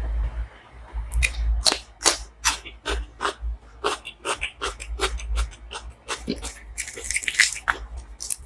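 A person chewing and smacking their lips over a mouthful of butter chicken and paratha, close to the microphone, with many irregular wet mouth clicks, several a second.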